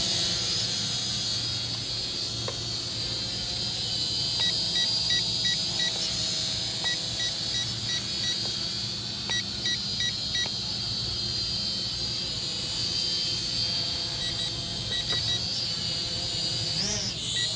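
Small toy quadcopter's propellers and motors whining steadily in flight, with several groups of short, evenly spaced electronic beeps, about four a second. Near the end the whine swings sharply up and down in pitch as the drone is thrown about.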